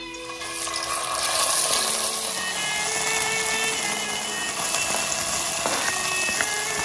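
Minced garlic sizzling in hot oil in a frying pan, starting about a second in and then holding steady, with background music playing over it.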